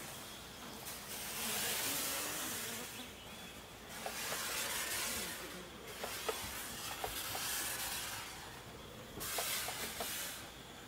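Several bursts of hissing spray, each a second or two long with short gaps between, as an insect fogger puffs out thick clouds of white fog against the mosquitoes.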